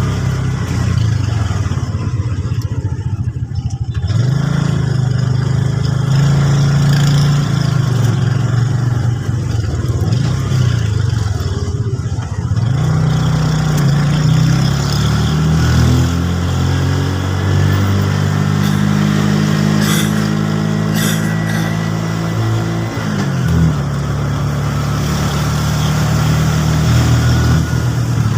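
Motor vehicle engine running while being driven, its pitch stepping up and down with changes in speed and dropping suddenly about three-quarters of the way through.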